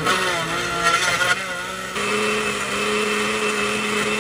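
Countertop blender puréeing mango chunks: the motor starts suddenly and runs with a wavering pitch at first, then settles into a steady, slightly higher whir about halfway through before stopping near the end.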